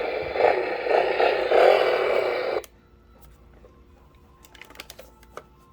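Toy Batmobile's built-in speaker playing its engine start-up sound effect, a tinny engine noise that surges a few times and cuts off abruptly under three seconds in. Faint clicks follow.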